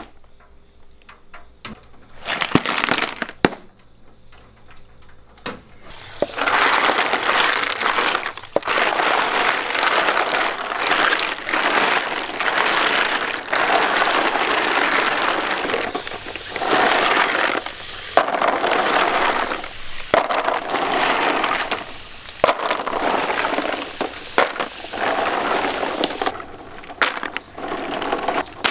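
Hard shells of giant edible snails clicking and clattering against each other in a plastic tub. From about six seconds in, a hose spray nozzle hisses water over them while they are stirred and rubbed by hand, the shells scraping and rattling under the spray until shortly before the end. This is a rinse to wash the sticky slime off the snails.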